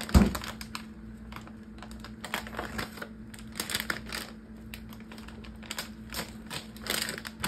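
Plastic bag of shredded Parmesan cheese crinkling and crackling in a run of quick clicks as it is handled and worked open, with one sharp knock just after the start.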